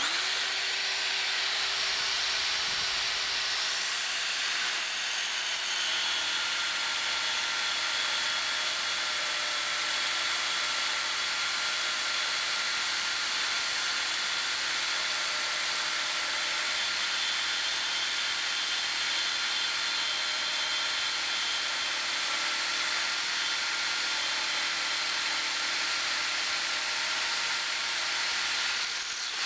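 Electric drill spinning a milling cutter, running steadily as it mills a face into a steel part, a continuous hiss-like whir with a steady whine in it.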